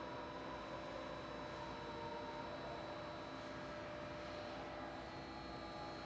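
Steady hum with a faint wavering whine from the hydraulic drive of a Geringhoff corn head, running the ICF sweeper reel and the end roll augers together.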